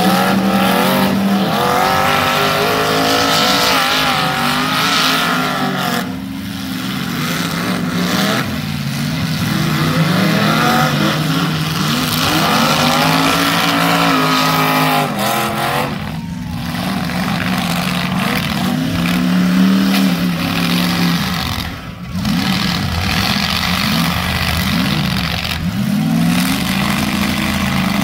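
Full-size demolition derby cars' engines revving hard, over and over, the pitch climbing and falling as the throttle is floored and let off, with several cars running at once.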